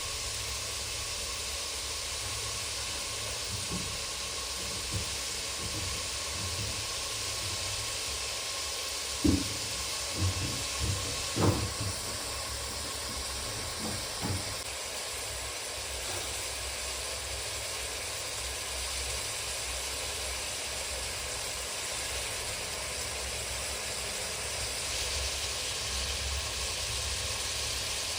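Steady sizzling hiss of food frying in a pan of ghee, with a few short knocks about nine to twelve seconds in.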